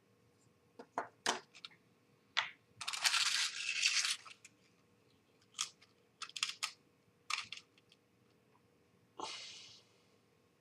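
Small plastic bag of model screws being handled and opened: crinkling and rustling, loudest about three seconds in, with scattered light clicks and taps of the tiny screws.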